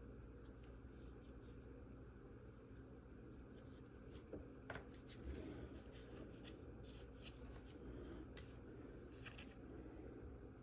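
Faint, scattered small ticks and rustles of fingers handling a sticker sheet and small plastic model parts while a sticker is lined up and pressed on.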